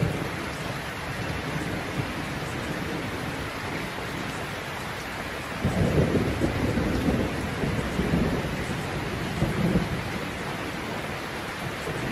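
Steady rain hissing, with low rolling thunder that swells up about six seconds in and rumbles on for several seconds: a rain-and-thunderstorm ambience track.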